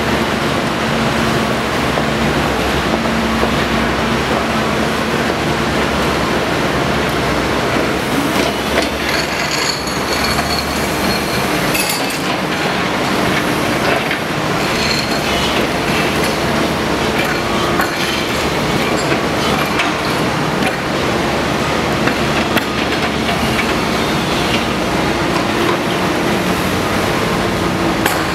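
Wheeled excavator's diesel engine running steadily under hydraulic load while its octopus sleeper handler spreads and lowers concrete sleepers. About a third of the way in and again around the middle there are metal clanks and high metallic squeaks from the handler's grabs.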